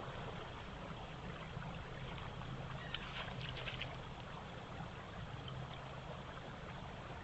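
Steady rushing outdoor background noise with a low hum running under it, picked up by a trail camera's microphone, with a few faint ticks about three seconds in.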